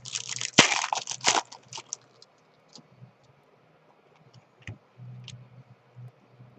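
Foil trading-card pack wrapper crinkling loudly as it is torn open, then a few light clicks and taps of cards being handled.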